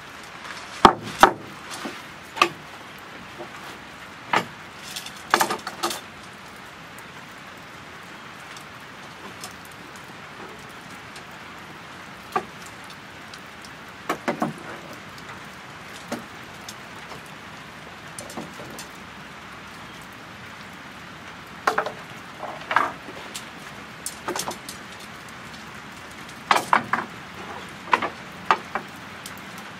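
Sharp clacks of tent pole sections knocking and snapping together as the poles are unfolded and joined, in clusters over a steady hiss of light rain.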